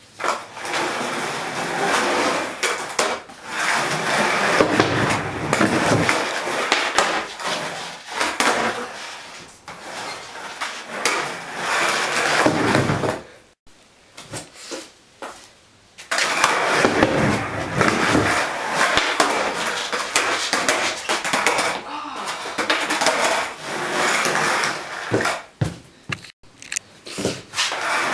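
Skateboard wheels rolling across a garage floor, with sharp clacks of the board popping and landing. The rolling stops for about two seconds midway, then starts again.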